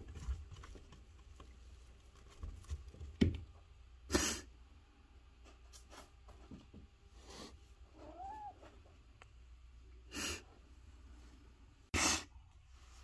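A domestic cat giving one short, faint meow about eight seconds in, with three short breathy bursts of noise around it, the loudest sounds in the stretch.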